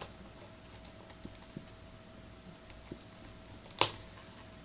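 Faint handling noises as a box of sports memorabilia is opened: scattered small taps and clicks, with one sharper click near the end, over a faint steady hum.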